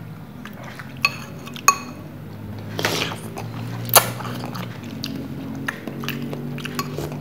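Eating at the table: spoons clinking against soup bowls in a few sharp clicks, and a slurp of tom yum soup noodles from a spoon about three seconds in, over a low steady hum.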